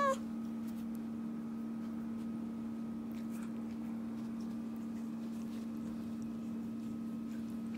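Steady low mechanical hum of a room appliance, even in level throughout. The end of a cat's falling meow is heard right at the start.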